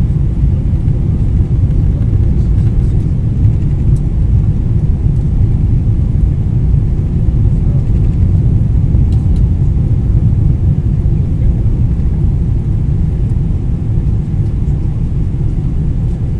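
Steady low rumble of engine and air noise heard from inside the cabin of a Boeing 777-300ER on final approach.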